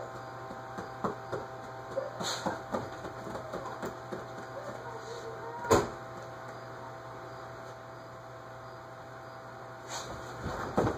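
Room tone with a steady low hum, scattered soft knocks and one sharp click about six seconds in, and faint voices in the first half.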